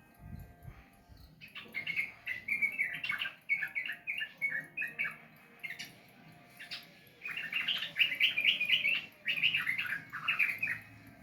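Yellow-vented bulbul (trucukan) singing: two bouts of quick, bubbling chattering phrases, the first starting about a second and a half in and the second, louder, starting past the middle.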